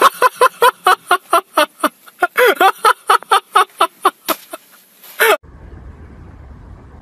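A rapid, regular run of short voiced calls, about four a second, that stops abruptly about five seconds in, followed by a low steady rumble.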